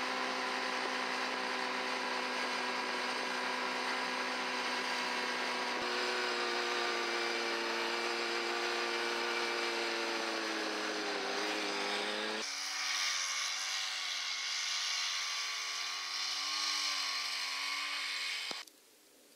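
Vehicle engine running with a steady drone, in three spliced stretches that cut sharply from one to the next about six and twelve seconds in. In the last stretch the pitch wavers up and down, and the sound cuts off abruptly near the end.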